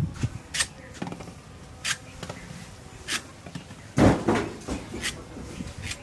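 A series of sharp knocks, about one every second or so, with a louder knock and brief clatter about four seconds in.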